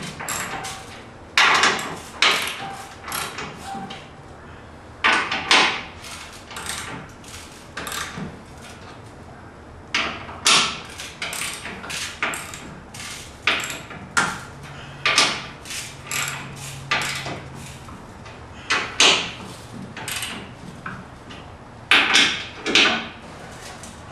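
Irregular sharp metal clanks and knocks, about one a second and some in quick pairs, from hand work fitting a steel backing plate and its bolts onto a steel frame rail.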